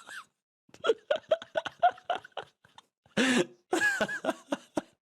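A man laughing in quick pulsed bursts, with a breathy, cough-like exhale about three seconds in.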